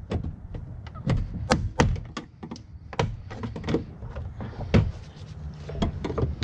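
Plastic retaining clips on a Ford Transit's interior door panel popping loose one after another as a panel removal tool pries the panel off the door. The panel knocks against the metal door. The sharp clicks and knocks come irregularly, several of them loud.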